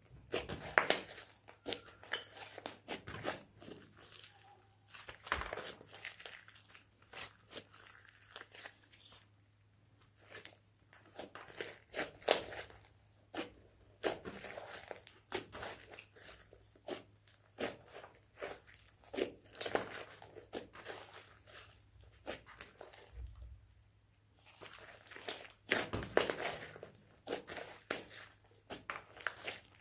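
Slime being squeezed and kneaded by hand, giving dense, irregular sticky clicks and pops, with two short lulls, about ten and twenty-three seconds in.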